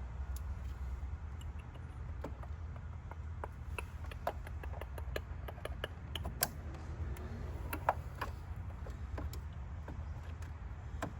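Scattered small clicks and light plastic knocks as an oil catch can hose and its fitting are pushed into place by hand, with two sharper clicks in the middle, over a steady low hum.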